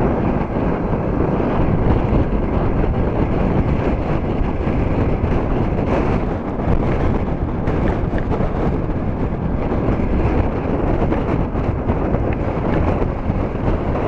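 Storm wind buffeting the microphone in a steady, heavy rumble, over waves breaking and washing up a pebble lakeshore.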